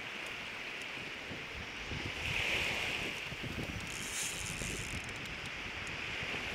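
Wind buffeting the microphone over the wash of surf breaking on the beach, the surf swelling about two seconds in.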